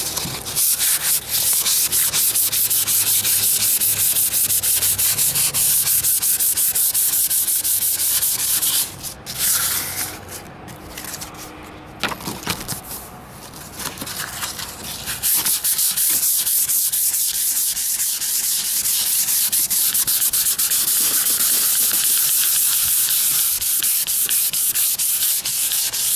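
400-grit sandpaper rubbed by hand over a painted car hood in quick back-and-forth strokes, scuffing the paint so the next coat fills the fine scratches. The strokes become quieter and broken for several seconds in the middle, then resume at full pace.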